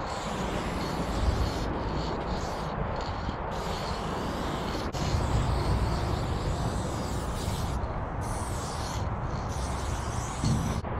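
Aerosol spray-paint can hissing in long bursts, with a few short pauses between strokes, over a steady low rumble.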